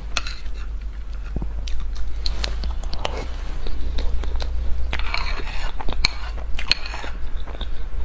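Close-up eating sounds: a small metal spoon scraping and scooping soft cream cake across a plate, with wet mouth and chewing sounds in between. The clicks and scrapes are irregular and come thickest about five to seven seconds in.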